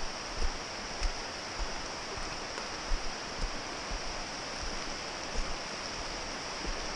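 Steady rushing of a rain-swollen creek, with the hiker's footsteps on a rocky trail thudding roughly every half second.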